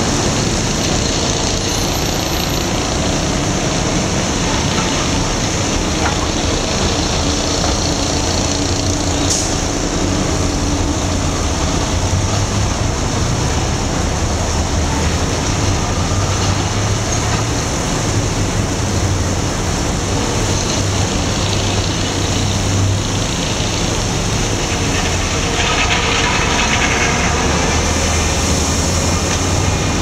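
Fire engine running steadily as it pumps water to a hose line, with the hiss of the hose stream spraying onto pavement. The steady low drone is under it throughout.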